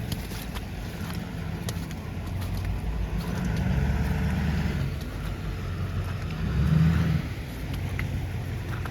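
Cars going by on a slushy street: a steady low rumble, with tyre hiss that swells a little before halfway through.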